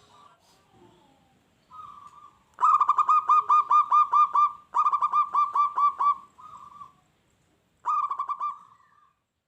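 Zebra dove (perkutut) singing its staccato cooing song: several bouts of quick, evenly repeated coos. The longest bout lasts about two seconds, and short gaps separate the bouts.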